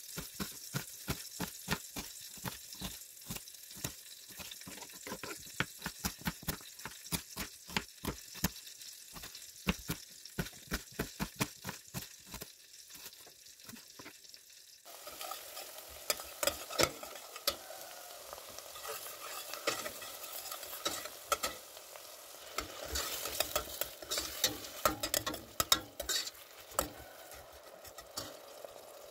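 A knife chopping an onion on a wooden cutting board, steady chops about three a second. About halfway through it changes to a filling sizzling as it fries in a steel pot, stirred with a slotted spoon that scrapes the pot.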